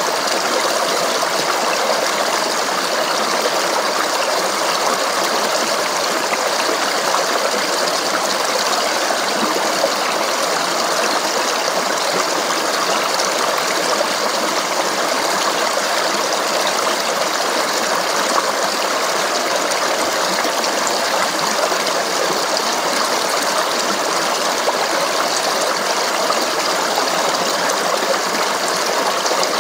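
Stream of flowing water babbling steadily, an even, unbroken rush with little deep rumble.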